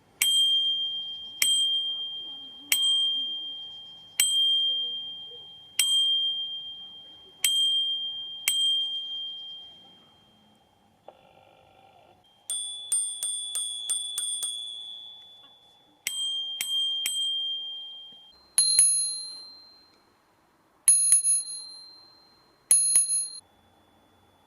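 Bicycle bell struck over and over, each strike a bright, high ding that rings on and fades over a second or two. It starts with seven single dings about a second and a half apart. Then comes a quick run of about eight strikes, then three more, and the last five dings ring at a noticeably higher pitch.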